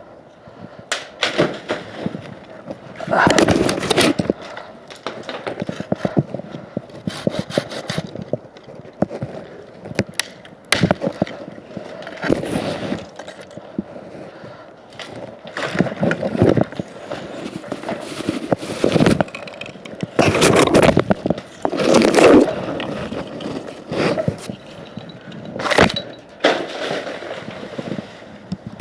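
Irregular scraping, knocking and cracking of wood, in bursts of a second or so, close to the microphone, with no steady saw tone.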